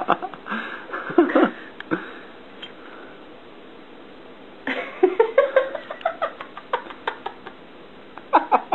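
A domestic cat vocalizing in short bursts: a few brief sounds at first, a pause, then a call that rises in pitch and breaks into a quick run of short chirping sounds.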